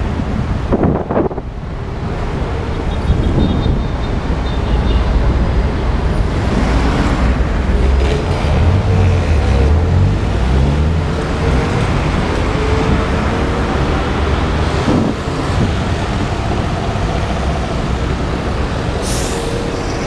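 Road traffic passing close by over a steady low rumble, with a motor vehicle's engine rising and falling in pitch through the middle.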